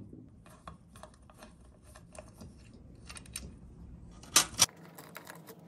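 Ratcheting socket-drive Allen driver clicking in short runs as Allen bolts are backed out of an engine side cover. Two louder clicks come close together about four and a half seconds in.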